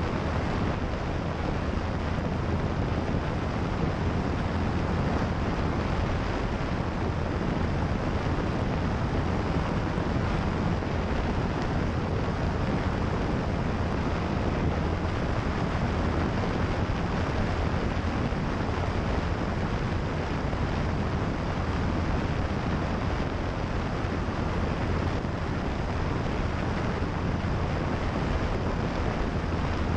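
Single-engine light aircraft's propeller engine running steadily while climbing out after takeoff, heard from a camera mounted outside on the wing, with heavy wind rush over the microphone.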